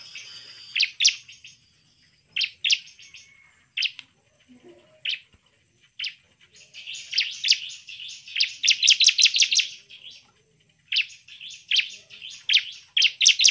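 Bar-winged prinia (ciblek) singing vigorously: sharp, high chirps, first in scattered single notes, then in fast runs of about eight to ten chirps a second with brief pauses between them.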